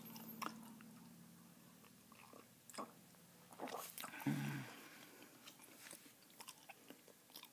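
Quiet, close-up chewing of a wad of three pieces of Bazooka bubble gum, with scattered sharp clicks and snaps from the gum.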